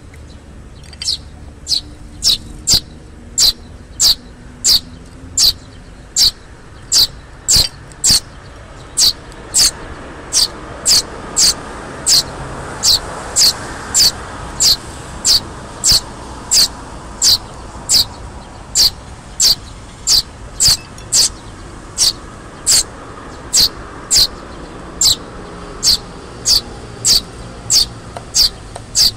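Eurasian tree sparrow fledgling begging: short, high, falling calls repeated steadily at about three every two seconds, as it gapes at the adult for food.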